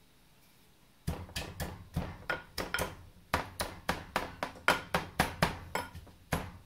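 Wooden muddler pounding lime pieces, mint leaves and sugar in a ceramic bowl to release their juice and aroma: a rapid series of knocks, about three a second, starting about a second in.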